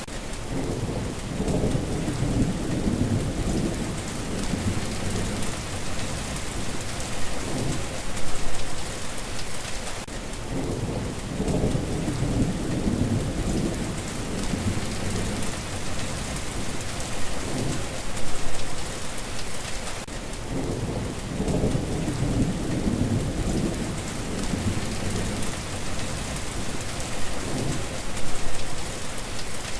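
Steady heavy rain hissing, with low rolling rumbles of thunder coming and going. The same stretch of rain and thunder repeats about every ten seconds, like a looped recording.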